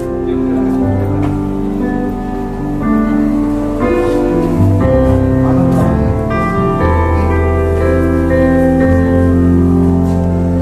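Background music of slow, sustained chords over a bass line, the chords changing every second or so.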